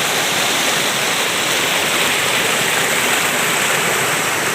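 Waterfall and creek water rushing over rocks, a loud, steady noise of falling water.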